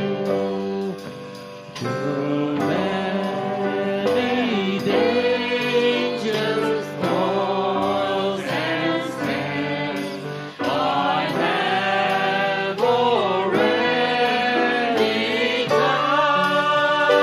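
Several voices singing a worship song together, backed by piano and drums.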